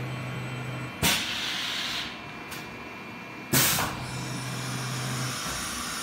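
CNC mill changing tools: two sharp, loud bursts of compressed-air hiss about two and a half seconds apart as the tool is released and clamped in the spindle, over a steady low machine hum that drops out during the change.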